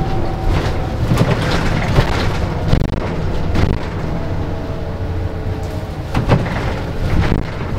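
Cabin noise of a LiAZ-5292.65-03 city bus on the move: a steady low engine and road rumble, with several knocks and rattles from the body as it goes over bumps.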